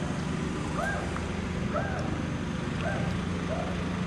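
Red-shouldered hawk calling in a series, a short call that rises and falls in pitch about once a second, over a steady low hum of traffic.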